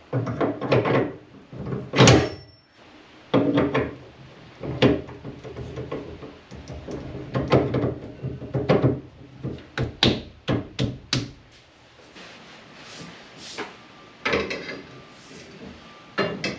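Metal steering parts knocking and clinking as a bronze tiller arm is slid onto and fitted around a boat's rudder post shaft: a run of irregular knocks and clanks, the loudest about two seconds in.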